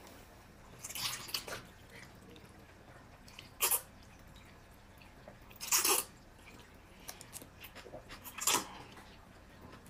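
Eating sounds at the table: about four short, wet slurps spread over a few seconds, over quiet room tone.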